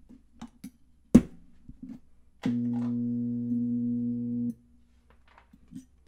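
Microwave-oven-transformer spot welder buzzing through a roughly two-second weld pulse, a steady mains hum that starts and cuts off abruptly. About a second in, a single sharp knock, with a few faint clicks around it.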